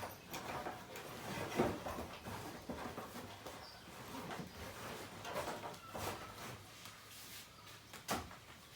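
Irregular clinks and knocks of metal tools and parts being handled, with a louder knock about eight seconds in.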